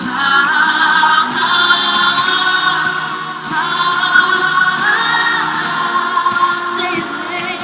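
Music with a choir singing long, held notes that waver slightly and change pitch every second or two.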